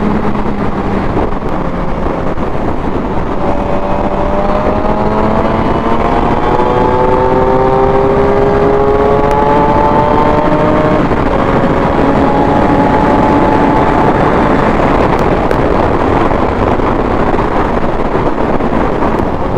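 Suzuki GSX-R750 inline-four engine pulling at freeway speed under heavy wind and road rush, its pitch climbing steadily for several seconds then dropping about halfway through as it shifts up, before holding steadier. The bike pulls cleanly on a newly replaced clutch that had been slipping at full throttle.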